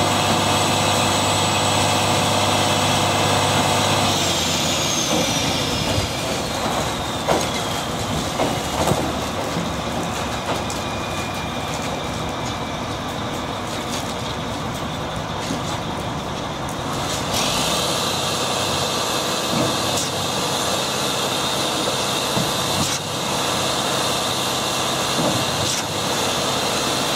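A heavy concrete truck's engine running steadily. A strong low hum drops away about four seconds in, and a high whine then falls slowly in pitch over the next several seconds.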